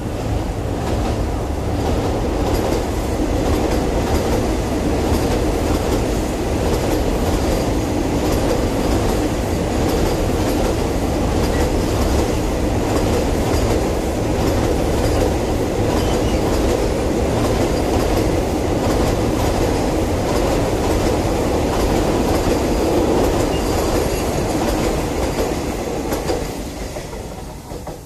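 Vande Bharat Express electric multiple-unit train running across a steel-girder viaduct: a loud, steady rumble of wheels on rails as the coaches pass, dying away near the end.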